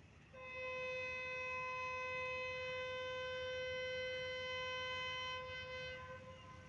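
Diesel locomotive's horn giving one long, steady single-note blast, a warning as the train nears the level crossing. It starts a moment in and fades out after about six seconds.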